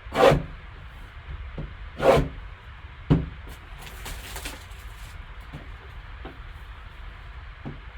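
Sealed trading-card box being handled and opened by hand: two short scraping swishes of cardboard, a knock about three seconds in, then faint rustling of packaging.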